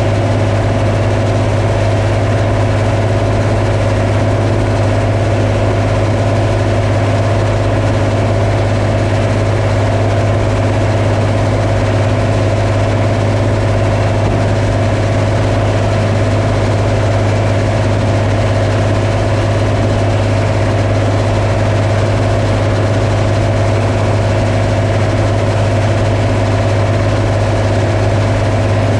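Combine harvester running steadily: a constant, unchanging engine and machinery drone with a strong low hum.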